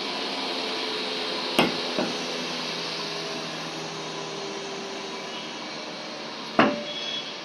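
Steel pickaxe head and wooden handle knocking together as the head is fitted onto the handle: two light knocks about a second and a half in, then one sharp knock with a brief ring near the end, over a steady background hum.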